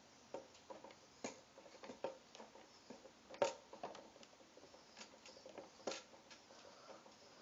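Hands flattening Play-Doh on a tabletop: faint, scattered taps and clicks, the sharpest about three and a half seconds in.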